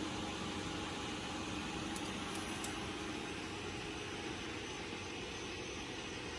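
Steady rushing noise with a faint low hum, like a fan or a distant engine, with a few faint ticks about two seconds in.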